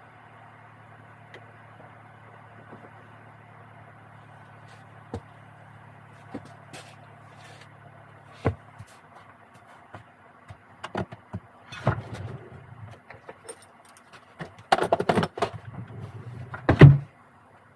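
Chinese diesel heater's fan running steadily during its post-shutdown cool-down, a low even hum that drops away about halfway. Then come a series of irregular knocks and rustling bursts, growing louder, with the loudest near the end.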